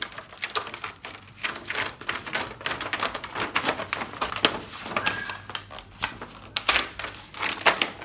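The TV's glued backlight reflector sheet being peeled off the panel, tearing away from its adhesive in a fast, irregular run of small crackling clicks, with a few louder snaps a little past the middle.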